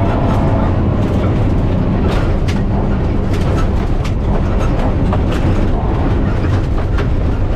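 Rally car's in-cabin noise as it slows on a gravel stage: the engine note drops away in the first moment off the throttle, leaving a heavy low rumble of tyres and drivetrain, with stones and gravel repeatedly clattering against the underbody.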